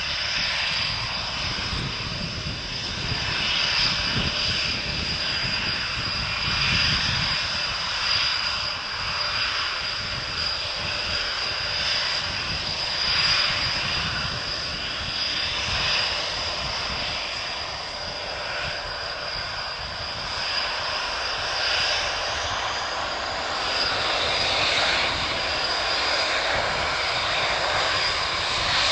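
Panavia Tornado's twin RB199 turbofan engines running at taxi power: a steady high-pitched whine over a continuous hiss of jet noise.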